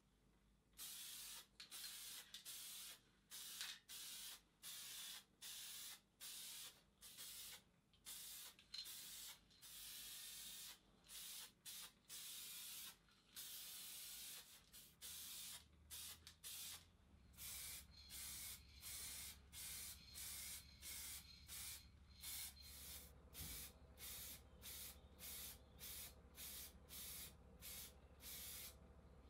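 Spray paint hissing in dozens of short bursts, about one a second, a few held for a second or more, as metal parts are given a coat of paint.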